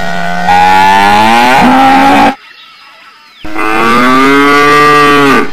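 Dairy cow mooing: two long moos, each about two seconds, with a short pause between.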